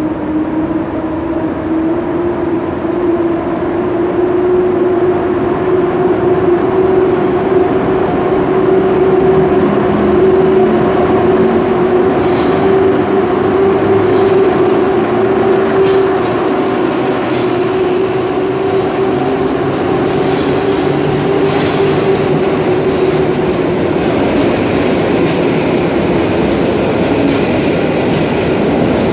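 A locomotive-hauled passenger train pulling away from the platform and gathering speed. A steady mechanical whine from the locomotive swells, then fades as it passes. The coaches then roll by with repeated wheel clicks over the rail joints.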